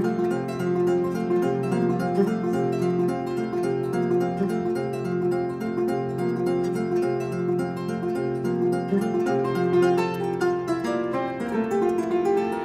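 A West African kora, the 21-string harp, played solo: a fast, continuous flow of plucked notes over a repeating bass pattern, with a quick descending run near the end.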